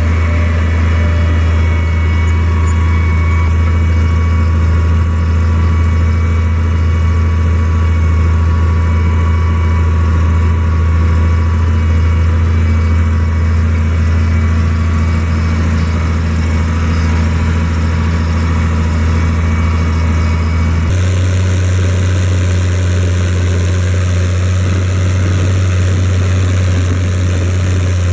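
Case IH 1056 XL tractor's six-cylinder diesel engine running steadily under load while pulling a four-furrow plough, heard from inside the cab. About three-quarters of the way through, the sound changes abruptly to a thinner, hissier engine sound.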